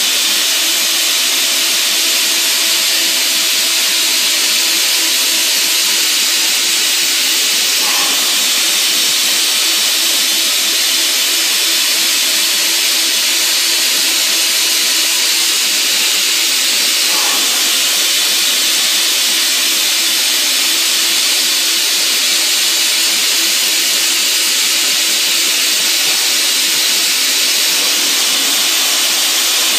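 Fadal VMC-15XT CNC mill running a 1/16-inch carbide end mill at 20,000 rpm in a Lyndex 5:1 speed-increaser head, milling a Delrin rod: a loud, steady hiss with a constant hum underneath.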